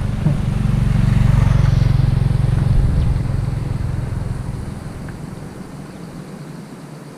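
A motor vehicle's engine running close by, loudest in the first few seconds, then fading steadily as it moves away.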